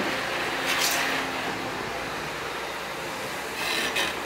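Liebherr R926 crawler excavator's diesel engine running steadily under load as the hydraulic arm and tiltrotator bucket work the slope. Two brief hissing sounds stand out, about a second in and again near the end.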